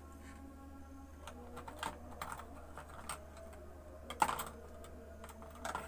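Scattered light clicks and taps of small tools and objects being handled on a workbench, with a louder clatter about four seconds in, over a steady low hum.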